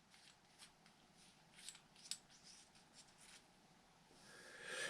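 Faint, sparse clicks and light scraping of an RC shock's cap being unscrewed by hand.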